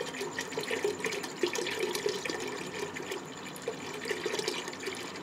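Milk pouring in a steady stream into a metal pressure cooker, splashing into the milk already in the pot as it fills.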